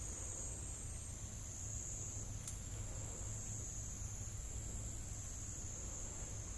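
Steady high-pitched insect chorus that drones on without a break, with a faint low hum underneath.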